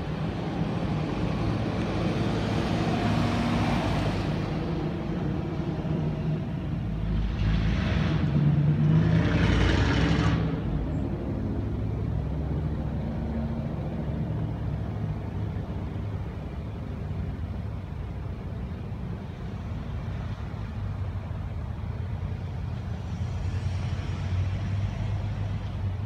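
A motor vehicle engine running steadily, with two louder stretches of rushing noise, one about two to four seconds in and one about seven to ten seconds in.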